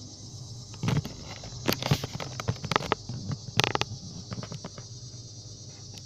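Scraping, tapping and knocking of a camera being handled and set down on asphalt, in irregular sharp bursts during the first four seconds. A steady high-pitched hiss runs underneath.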